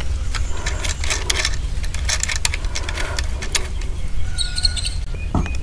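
Irregular light clicks and taps of small parts and tools being handled during the strip-down of an electric water heater, over a steady low hum.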